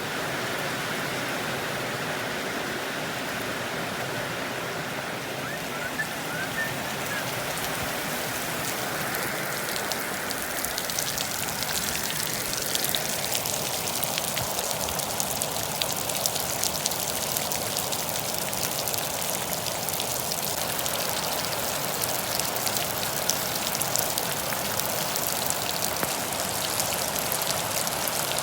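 Steady rush of running water, with sharper splashing and pattering joining in about ten seconds in.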